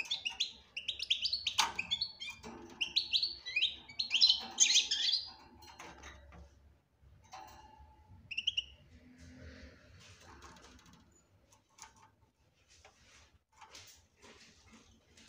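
European goldfinch twittering: a run of rapid high chirps for about five seconds, then two short notes, followed by faint scattered clicks and taps.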